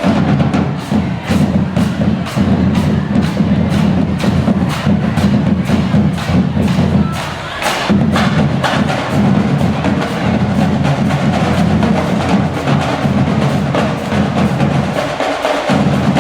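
Music with a fast, steady percussive beat and a heavy low end. The bass drops out briefly about eight seconds in.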